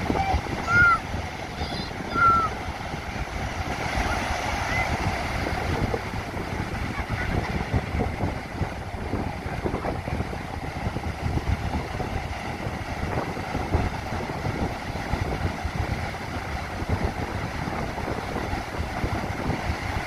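Ocean surf breaking steadily, with wind buffeting the microphone. Two short, high cries stand out about one and two seconds in.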